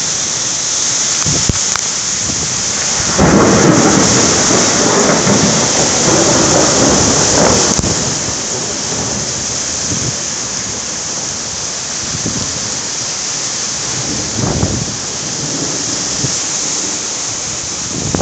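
Heavy rain pouring steadily during a thunderstorm. A long roll of thunder starts about three seconds in and rumbles for about five seconds, the loudest part. A couple of fainter rumbles come later.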